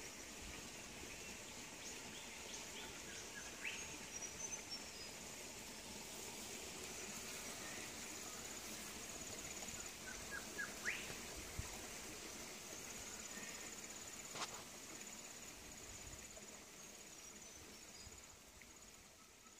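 Quiet outdoor ambience: a steady background hiss with a few short, rising bird chirps and a faint, rapid high-pitched trill that comes and goes.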